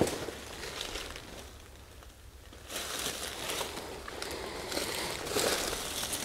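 Rustling and crunching handling noise as a person moves about carrying the camera, with a few light clicks. It eases off for a moment about a second in, then picks up again.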